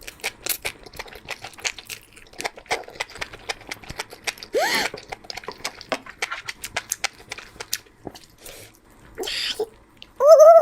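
Close-miked chewing of a bite of food dipped in mustard sauce: many small, irregular wet clicks and smacks of the mouth. A short hummed voice sound comes about halfway through, and a brief voiced exclamation near the end.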